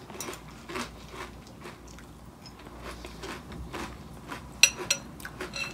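Mouthful of crunchy corn-based cereal with marshmallows in milk being chewed, with small irregular crunches throughout. Near the end, a few sharp ringing clinks of a metal spoon against a ceramic bowl.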